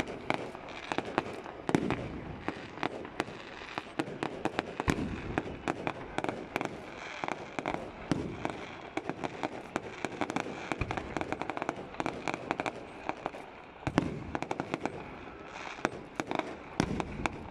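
Aerial fireworks shells bursting in quick succession: a dense, continuous run of bangs and crackles, with a few louder booms standing out, one about two-thirds of the way through.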